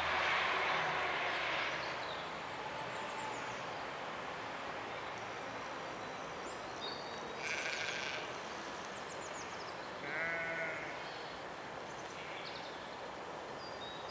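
A sheep bleats, most clearly once about ten seconds in, with a shorter, higher call a couple of seconds before it. Small high bird chirps come and go, and a brief rush of noise is the loudest thing at the start.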